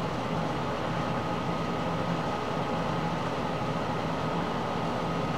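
Steady background hum and hiss with a faint high whine running through it, unchanging throughout.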